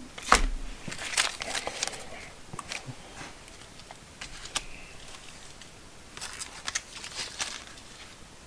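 Packs of small bolts and nuts being handled and set down: plastic packaging crinkling, with sharp clicks in several short clusters. The loudest click comes just after the start.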